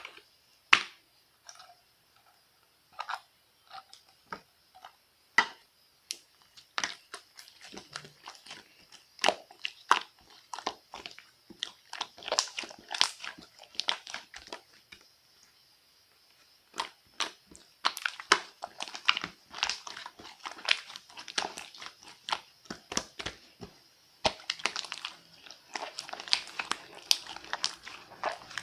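Crunchy chewing and biting: irregular crisp crackles, thinning to a brief lull about halfway through and then coming thick and fast.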